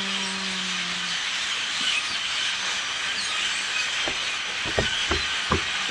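A huge flock of small black migrating birds chirping all at once, a dense hissing chatter without any single clear call. A few low thumps sound near the end.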